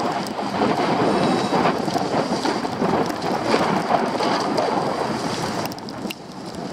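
Edges sliding down a snowy piste: a steady, grainy scraping hiss over the snow, surging with the turns and dipping briefly near the end.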